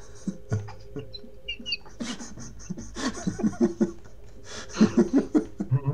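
Laughter: fairly quiet for the first two seconds, then loud rhythmic bursts of laughing that peak near the end.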